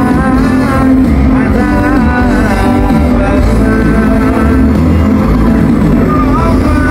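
Pop band playing live through a large outdoor PA, heard from within the crowd: loud music with heavy bass and a singing voice.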